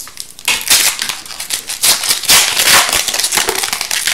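Foil wrapper of an Upper Deck hockey card pack tearing open and crinkling as it is peeled off the cards. The crackling is loudest about half a second in and again from about two to three seconds in.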